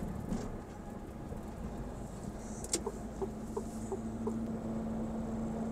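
Cab interior noise of a Mercedes-Benz semi-truck under way on the highway: a steady low engine and road rumble, with a steady drone coming in about four seconds in. A few light clicks or chirps sound near the middle.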